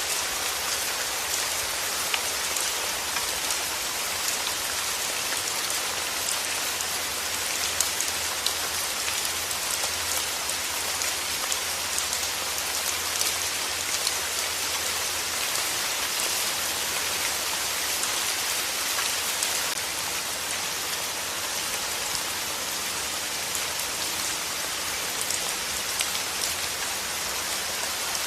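Steady rain falling: an even, unbroken hiss with scattered sharper drop ticks.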